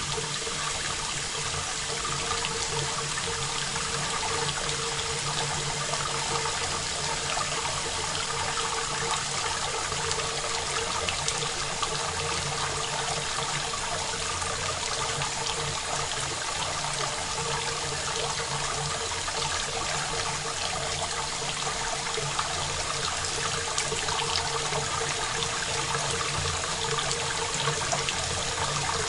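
Steady rain with a dense, even patter of drops, recorded dry without reverb, over a faint steady hum.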